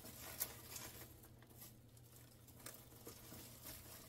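Faint crinkling and rustling of crisp roasted laver (gim) sheets being handled and pressed into a plastic container with plastic-gloved hands, with a sharp click about half a second in.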